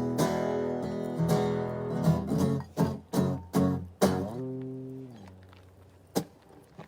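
Acoustic guitar strummed in steady chords, ending in a few hard strokes about four seconds in; the last chord is left ringing and fades away. A single sharp click follows near the end.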